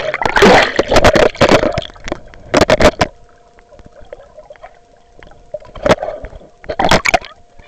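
Lake water splashing and sloshing around a waterproof camera as it dips under and moves through the water, heard muffled. Loud bursts of splashing come during the first three seconds and again near the end, with quieter gurgling in between.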